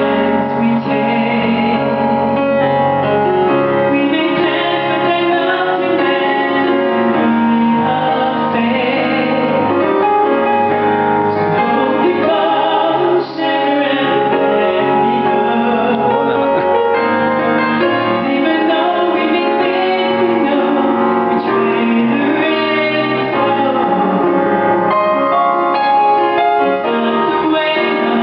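Female voice singing a slow ballad over piano accompaniment.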